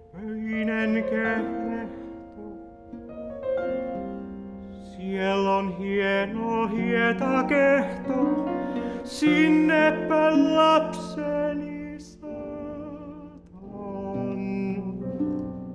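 Improvised song: a male voice singing with wide vibrato over digital piano, loudest in the middle and quieter for the last few seconds.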